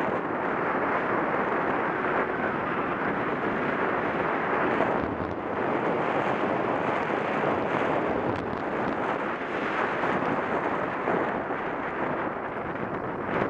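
Steady rush of wind over the microphone of a camera moving fast downhill along a tarmac track, a constant noisy roar with no engine note.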